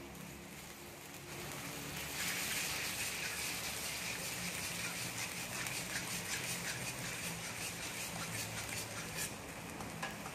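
Soy sauce mixture bubbling and sizzling in a hot steel wok, stirred with a metal wok spatula, with fine crackles throughout. The sizzling grows louder about a second in.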